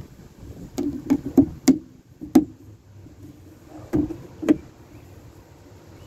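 Sharp plastic clicks and knocks of felt-tip markers and their caps being handled at a table, as one marker is put away and another uncapped. Five come in quick succession in the first two and a half seconds, then two more about four seconds in.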